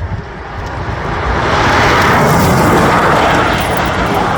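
Rimac Nevera electric hypercar accelerating past, with no engine note: a rushing whoosh of tyre and wind noise that builds about a second in, is loudest two to three seconds in, then begins to fade.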